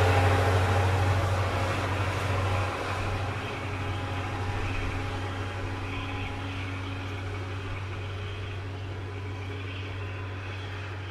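KiHa 20 diesel railcar moving away, its DMH17 diesel engine giving a steady low drone that fades gradually as the car draws off.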